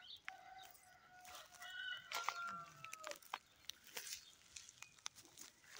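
A long drawn-out animal call, held about two and a half seconds and dipping slightly at its end, with crunching footsteps in dry grass.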